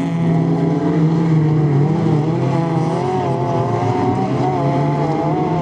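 Several race car engines running hard together, their pitch rising and falling as the drivers work the throttle through the corners of the circuit.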